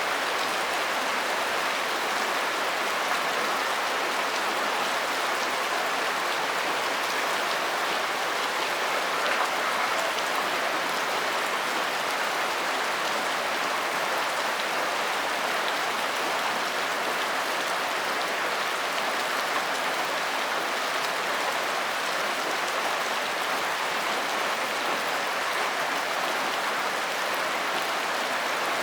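Steady rain falling, a constant even hiss of many drops with no breaks or changes.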